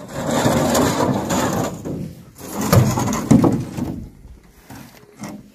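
Rustling and scraping as a large dark sheet and sacks are shifted about on dirt ground, with two sharp knocks about three seconds in, fading near the end.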